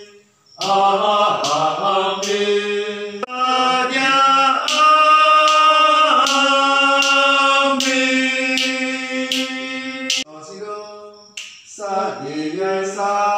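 Men's choir singing a piece in rehearsal, holding long notes. The singing breaks off briefly just after the start and again around ten seconds in.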